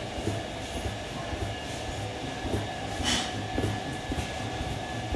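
A large knife chopping a folded sheet of hand-rolled fresh pasta into tagliatelle on a wooden pastry board: a steady run of dull knocks, about three a second, with one sharper sound about three seconds in.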